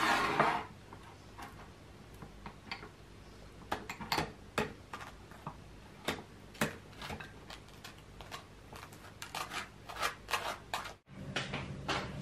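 Breakfast cutlery at work: a table knife scraping spread across toast and spoons clicking against a small bowl and dish, as a string of short scrapes and taps, with a louder scrape right at the start.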